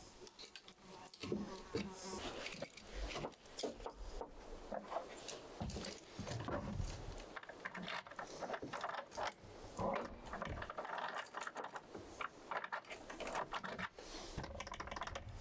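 Irregular clicks and scrapes of hand work on a wooden door: a chisel paring wood to seat a door lock, then small mechanical clicks as the lock hardware is fitted and worked.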